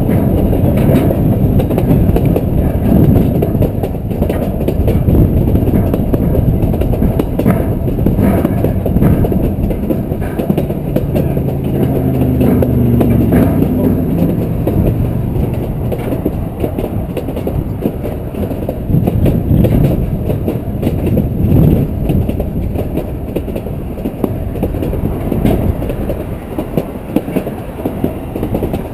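Model train running along garden track, heard from on board: a loud, steady rumble of wheels and drive on the rails with scattered clicks at the rail joints. About twelve seconds in a short low pitched hum rises over the rumble.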